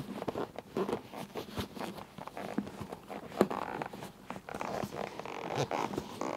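Fabric rustling with small clicks and knocks from a helmet's plastic shell as a chin curtain is worked into place by hand. One sharper click comes a little past halfway.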